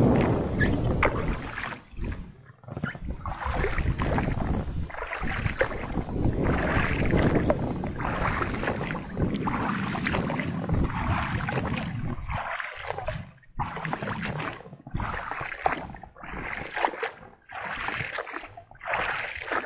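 Oars of an inflatable rowboat dipping and splashing through calm water in repeated rowing strokes.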